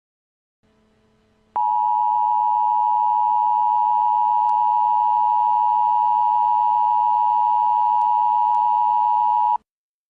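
Emergency Alert System attention signal: a steady two-tone alert that starts suddenly about a second and a half in, holds unchanged for about eight seconds, then cuts off abruptly.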